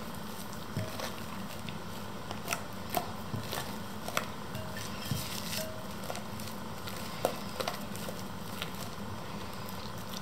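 Wet, fluffy slime made with glue and contact lens solution being squeezed and stretched by hand, giving irregular small pops and clicks every second or so.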